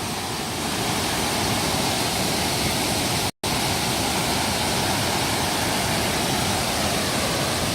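Waterfall: a steady, loud rush of falling water. The sound cuts out for a split second about three and a half seconds in.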